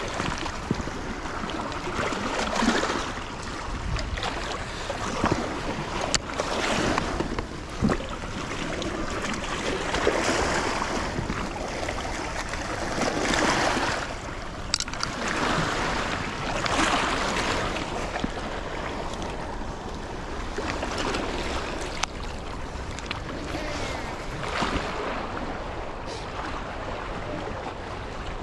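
Moving river water washing and surging, swelling and fading every few seconds, with wind buffeting the microphone and a few sharp clicks.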